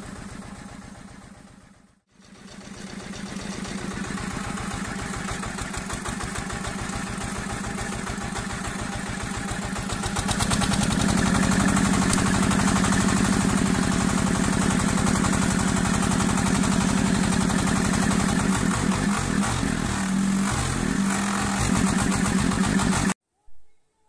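A small farm tractor's engine runs while driving and pulling a trailer. It grows louder about ten seconds in, wavers in pitch near the end, then cuts off abruptly.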